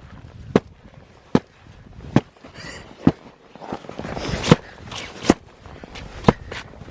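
Repeated sharp strikes on lake ice, about one a second, chipping free a fishing rod holder that is frozen into the ice.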